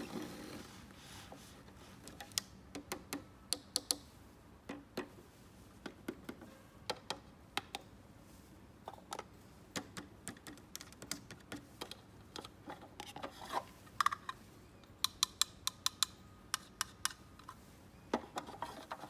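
Small plastic toy pieces being handled, a long irregular run of sharp light clicks and taps, with a short rustle at the start.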